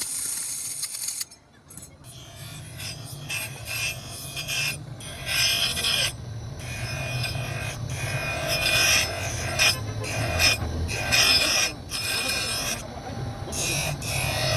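A hand file scraping in repeated strokes, about one a second, after a brief quiet pause near the start.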